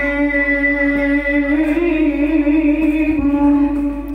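A male Qur'an reciter's voice, amplified through a microphone, holding one long melodic note in tilawah style with wavering ornaments. The note fades out near the end.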